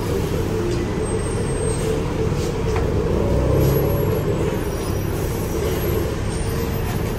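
Steady road traffic noise with a heavy vehicle's engine running close by.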